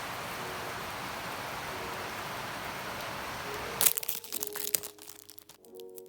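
A steady hiss like rain or static runs until it cuts off abruptly about four seconds in. Then comes crinkling and clicking of plastic packaging being handled, with soft background music starting near the end.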